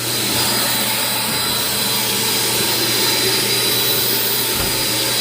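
Electric vacuum motors of a portable water-extraction unit and its booster running steadily, an even rushing noise with a low hum and a faint high whine under it.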